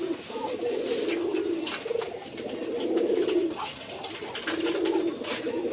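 Domestic pigeons cooing: several low, warbling coos overlapping one another, with a few faint clicks.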